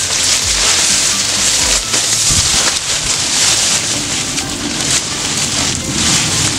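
Dense rustling and crackling of dry grass litter and stiff odot (dwarf elephant grass) leaves and stems being pushed aside and handled at the base of a clump, with many small snaps.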